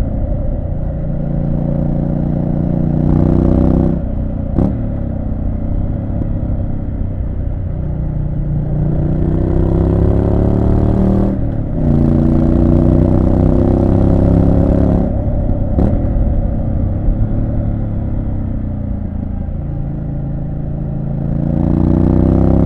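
Triumph Street Scrambler 900's 900 cc parallel-twin engine under way, rising in pitch as it accelerates several times and dropping back between, as with gear changes or the throttle rolled off. A sharp crack comes twice, about four and a half seconds in and again about two-thirds through.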